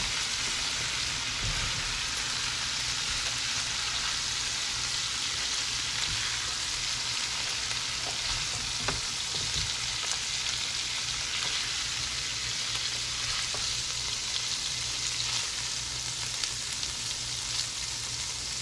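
Chopped onion, garlic and chicken pieces sizzling in oil in a nonstick pan, a steady hiss, with a few faint clicks of a silicone spatula against the pan.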